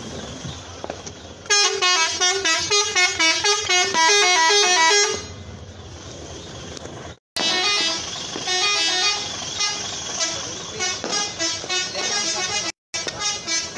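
Telolet multi-tone truck horns playing fast, stepping tunes, loudest from about a second and a half in to about five seconds. After a short break and a brief dropout, more horn tunes follow with short gaps.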